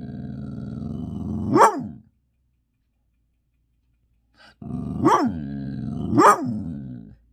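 A dog growling and barking in two bouts: a long, low, growling grumble broken by a sharp bark, fading out about two seconds in, then after a pause a second grumbling growl with two sharp barks.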